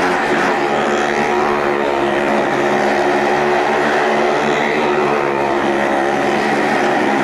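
Motorcycle engines running steadily at high revs as the bikes circle the wall of a well-of-death arena, a continuous drone with no breaks.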